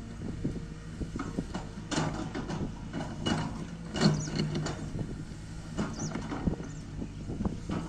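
Diesel engine of an earthmoving machine running steadily at work, with irregular metallic knocks and clanks from the machine, the loudest about four seconds in.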